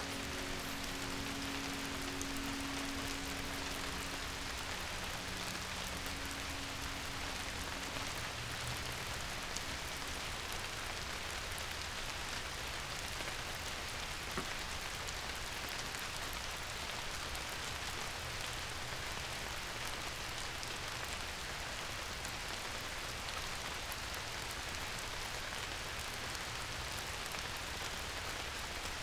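Steady rain falling, an even hiss of drops that does not change. A few held musical notes linger under it and die away over the first several seconds.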